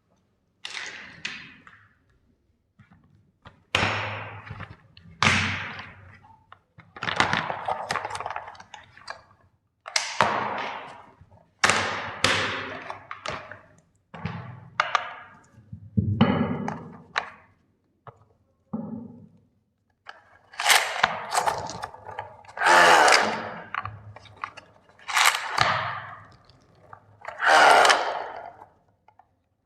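Plastic toy steam engine trains being crushed: a series of separate cracking, crunching breaks, each lasting about a second and fading, with the loudest ones near the end.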